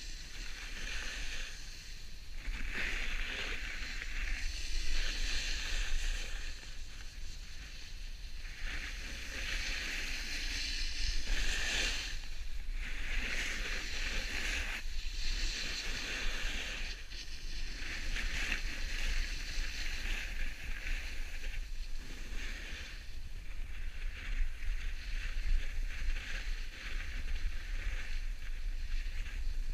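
Board edges hissing and scraping over packed snow while riding downhill, swelling and fading every few seconds with the turns. Low wind rumble on the microphone underneath.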